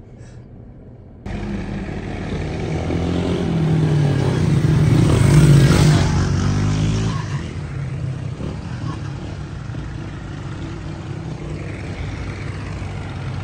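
Road vehicles on a mountain highway. Engine noise comes in suddenly about a second in, swells as a vehicle passes close about five to six seconds in, then fades to a steady hum of slow traffic.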